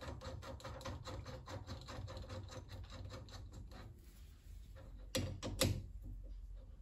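Bolt being run into the rear tool post mount on a Myford Super 7 lathe: a quick run of light metallic clicks, then two louder knocks about five seconds in.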